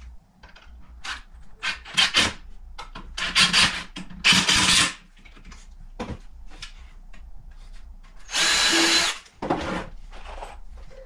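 Power drill run in about six short bursts of half a second to a second, pre-drilling and driving screws into a wooden frame.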